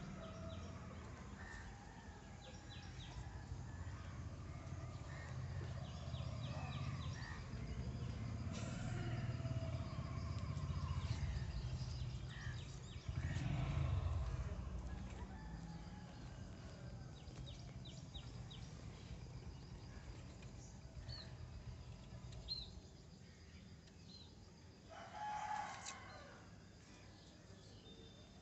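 Birds calling outdoors: scattered short high chirps, with one louder call about a second long near the end, over a steady low rumble that fades after the first half.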